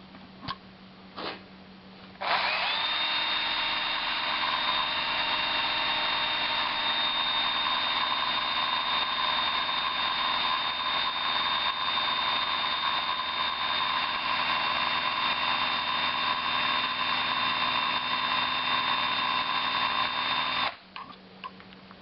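Cordless screw gun running steadily for about eighteen seconds, spinning a cut-off speedometer cable that drives a truck speedometer to test its odometer. Its whine rises briefly as it starts about two seconds in, then holds steady and cuts off sharply near the end; two faint clicks come before it starts.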